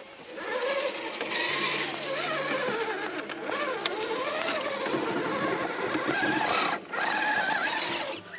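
Redcat Gen8 V2 RC crawler's stock 17-turn brushed motor and drivetrain whining as it crawls over rocks. The pitch rises and falls with the throttle, with a short break about seven seconds in.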